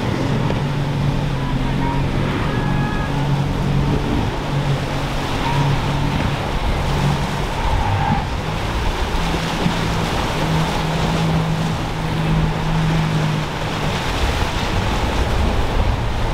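Twin Mercury 300 outboard engines running under power as the boat punches through breaking waves: a steady engine hum under the rush of surf, spray and wind.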